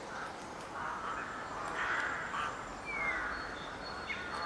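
Crows cawing repeatedly, a string of short calls, with a small bird giving a brief falling note about three seconds in.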